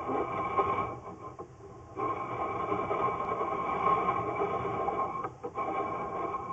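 Steady electrical whine with hiss from a sewer inspection camera system, dipping quieter about a second in and coming back a second later.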